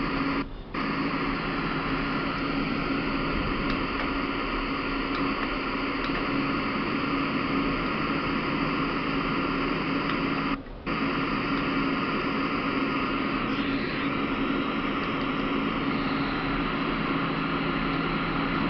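Philips MCD135 micro system's radio hissing with static through a test speaker, no station tuned in, over a steady low hum. The hiss cuts out for a moment just after the start and again about ten seconds in.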